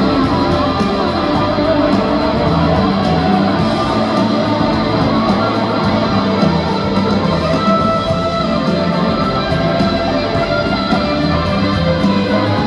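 Live country band playing an instrumental passage led by strummed guitar, without singing.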